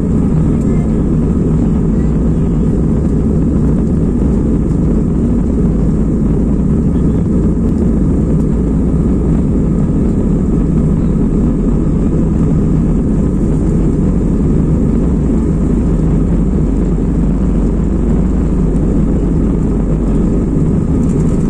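Jet airliner taking off, its engines a steady low rumble with no change in level.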